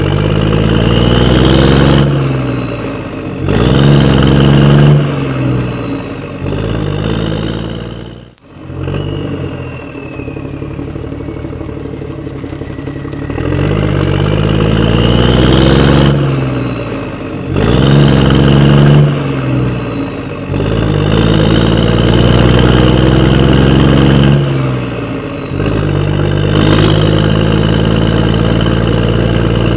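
Diesel tractor engine sound, revving up and settling back to idle several times, with a brief dropout about eight seconds in.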